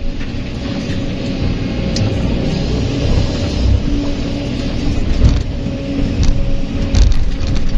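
Kobelco SK200 hydraulic excavator working: the diesel engine runs under load, with a hydraulic hum that comes and goes as the boom and arm move. The bucket swings back from the dump truck and digs into the dirt, with several sharp knocks of the bucket and rocks.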